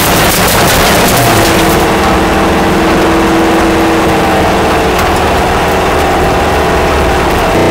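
VW Beetle rally car's engine running at a steady pitch, heard from inside the car, with tyre noise from the dirt road and small clicks of stones, thicker at first, that ease off after about a second and a half.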